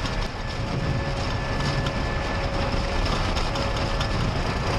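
Airbus A320 on its takeoff roll, heard from the cockpit: the engines running at takeoff thrust over a steady low rumble from the wheels on the runway, with a faint steady whine and scattered light knocks.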